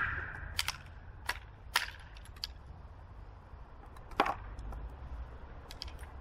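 The echo of a Werndl rifle shot fades away, then a series of sharp metallic clicks and knocks comes as the rifle's rotating breech block is worked and a fresh 11.15x58R cartridge is taken from the box and loaded. The loudest knock is about four seconds in, with a small cluster of clicks near the end.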